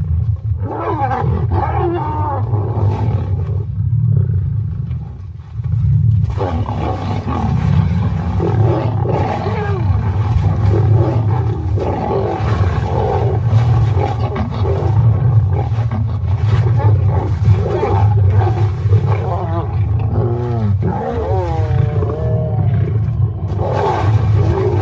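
Lions fighting: a continuous chorus of snarls and growls as lionesses of a rival pride attack an injured lioness. The sound eases briefly about five seconds in, then runs dense and loud again.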